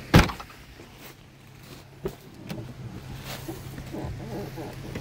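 One heavy thump about a quarter-second in, then a few faint knocks and clicks over a steady low hum.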